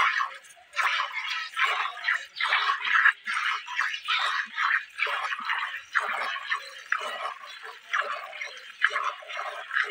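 Milk squirting from a Jersey cow's teats into a steel bucket during hand milking: short rhythmic squirts, about two a second, each stream splashing into the pail.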